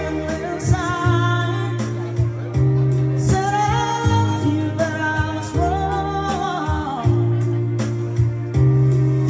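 A man singing karaoke into a handheld microphone over a backing track, his amplified voice holding long, wavering notes above steady bass notes.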